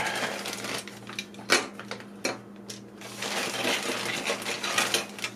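Old tin and plastic toy castle pieces being handled and set down: a busy run of light metallic clinks and rattles, with one sharper clack about one and a half seconds in.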